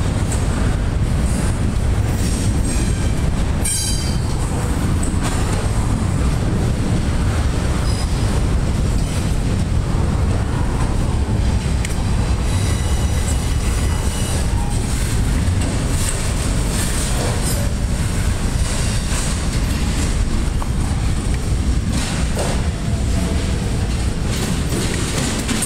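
Double-stack intermodal freight train's container well cars rolling past, a steady loud rumble of steel wheels on rail with scattered clacks. Brief high-pitched wheel squeals sound about four seconds in and again around the middle.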